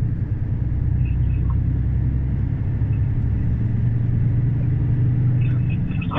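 Steady low drone of a Renault truck's diesel engine heard from inside the cab while the truck is under way.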